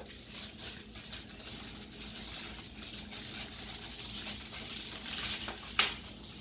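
Plastic wrapper on a rolled refrigerated pie crust rustling and crinkling as hands work at getting it open, with one sharp click near the end.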